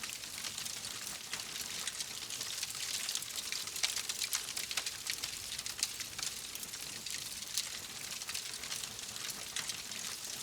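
Wood fire crackling: a steady hiss with many small, irregular pops and snaps.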